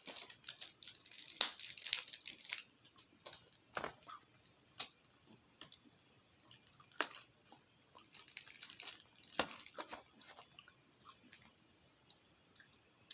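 A person chewing a piece of Dentyne Ice sugar-free mint gum: sharp crunches and crackles, busiest in the first couple of seconds, then scattered clicks that thin out.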